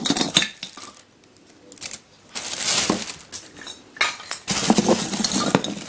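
Hard Christmas baubles and ornaments clinking and clattering against each other, with a plastic carrier bag crinkling, as a hand rummages through a box of them. Three bouts of rummaging: near the start, around the middle, and a longer one near the end.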